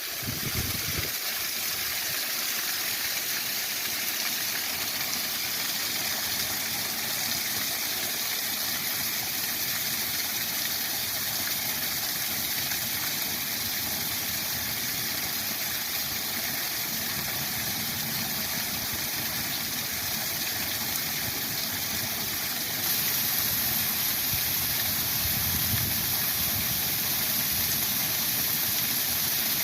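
Waterfall running: a steady rush of falling water that grows a little louder about two-thirds of the way through.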